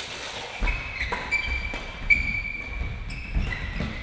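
Badminton doubles rally: rackets striking the shuttlecock in sharp hits, with several short high squeaks and low thuds of footwork on the court floor.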